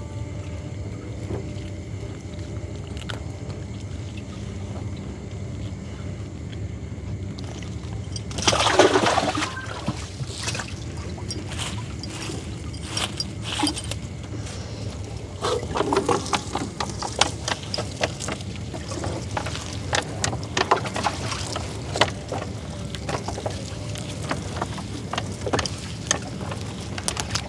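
Water splashing and dripping as a fishing net is hauled by hand into a small boat, over the steady low hum of the boat's engine. A loud splash comes about nine seconds in, followed by frequent small splashes and knocks.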